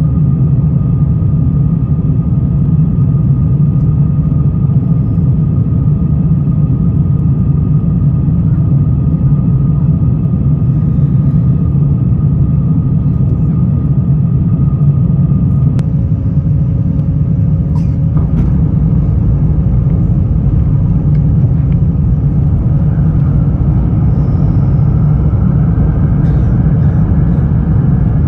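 Steady low rumble inside the cabin of a British Airways Airbus A350-1000, with faint steady whines above it. A further tone joins about halfway through, and a higher whine rises near the end.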